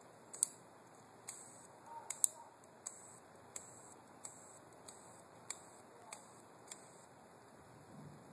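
A cheap disposable lighter's flint wheel being struck again and again without lighting: about a dozen sharp clicks, some with a brief hiss, stopping about a second before the end.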